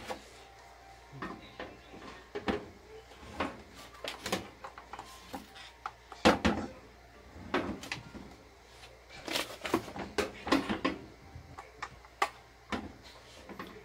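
Handling noise from a Ryobi cordless circular saw being turned over and moved on a hard surface: scattered plastic clicks and knocks, the loudest about six seconds in. The saw's motor is not running.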